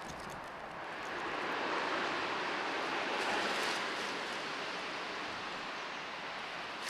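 A road vehicle passing by: its tyre and road noise swell over a couple of seconds, peak about three and a half seconds in, and slowly fade away.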